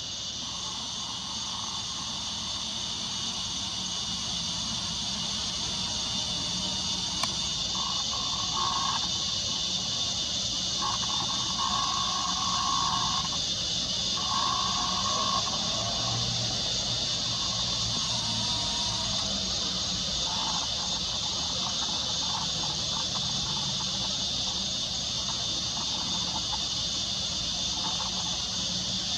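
Steady shrill chorus of insects at dusk, an unbroken high hiss.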